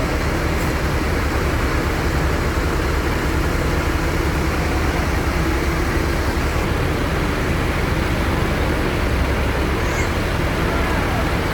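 Steady low engine rumble and road noise of a moving bus, heard from inside the cabin.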